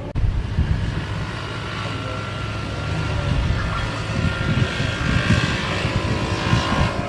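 Jet airliner engines, a high whine over a rumble, growing louder toward the end. Gusts of wind buffet the microphone.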